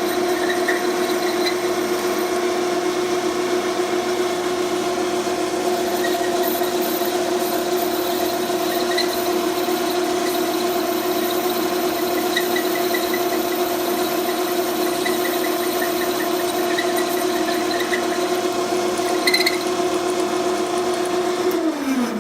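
Electric power tool motor running at a steady speed with a grinding noise as the exhaust transition piece is ground down to length. The motor spins down near the end.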